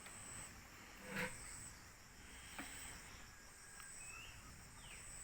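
Faint high insect trilling, pulsing on and off, after rain. A few soft drips of water fall, and there are a couple of brief chirps about four seconds in.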